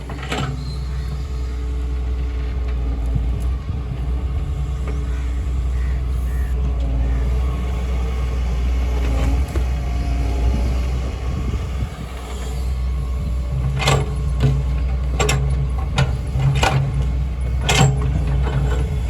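Doosan excavator's diesel engine running steadily with a deep rumble. Several sharp knocks come in quick succession near the end.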